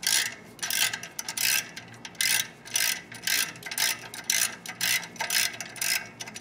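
Hand ratchet wrench clicking in short repeated bursts, about two or three a second, as it backs out a bolt holding the clutch pressure plate to the flywheel.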